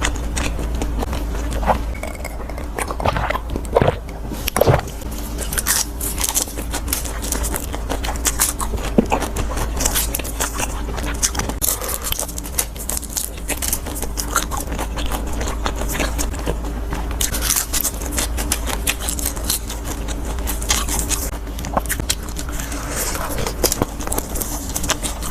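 A person eating fried skewers close to the microphone: irregular crunchy bites and chewing with crackling and scraping.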